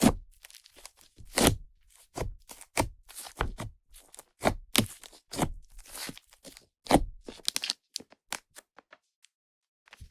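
Fluffy clay-and-butter slime made with Yoda clay being squished and pressed by hand, giving a run of wet pops and crackles as trapped air bursts. The pops come about one or two every half second and grow sparse near the end.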